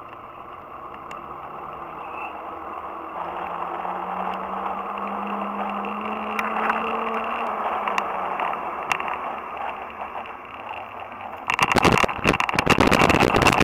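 A motor's steady drone, growing louder as its pitch slowly rises. About three-quarters of the way in, a sudden loud rattling clatter takes over.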